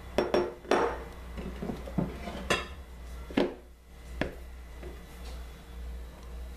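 Spatula clinking and knocking against a ceramic plate and a stand mixer's bowl as margarine is scraped off: several sharp clinks, the loudest in the first second, then a few more spaced out up to about four seconds in.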